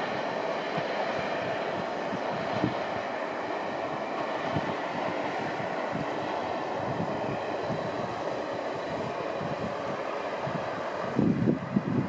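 Two-car KiHa 40 diesel railcar train running along the line and pulling away, a steady hum of engines and wheels on the rails. Wind buffets the microphone in gusts near the end.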